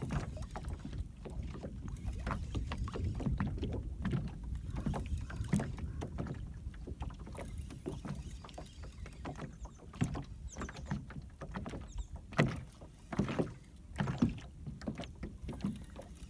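Small waves lapping and slapping against the hull of a small aluminium boat, with irregular knocks and clicks that get louder and sharper in the second half.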